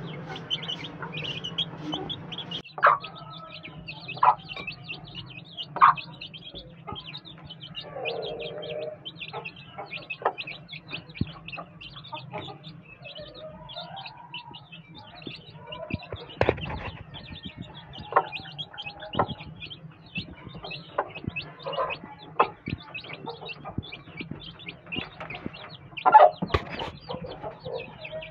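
A flock of chicks peeping busily and continuously, with a hen clucking now and then and a few sharp taps.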